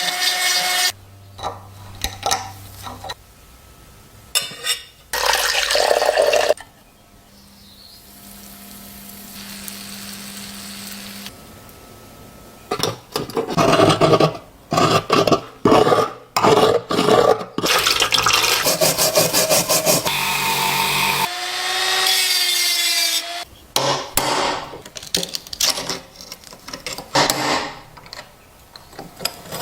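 Rust being worked off an old pocket knife by hand, in bursts of rubbing, scraping and rasping strokes on metal. There is a run of quick strokes in the middle and a short squeal about two-thirds of the way through.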